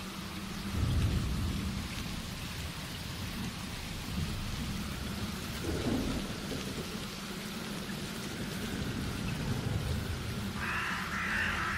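Heavy rain pouring steadily, with low rolls of thunder. The loudest roll comes about a second in. A brighter rushing noise joins near the end.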